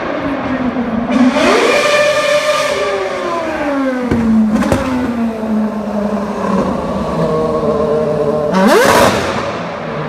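Red Bull Formula One car's engine revving hard. Its pitch shoots up about a second in, sinks slowly over the next few seconds, then climbs sharply again near the end.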